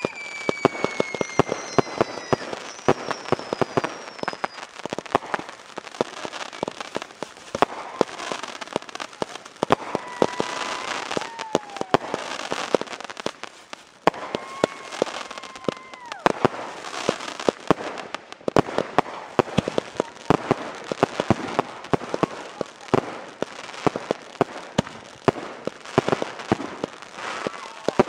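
Consumer firework cake (multi-shot aerial repeater) firing a long, rapid string of shots, with many sharp reports in quick succession from the launches and bursts overhead. A few whistles fall in pitch among the bangs.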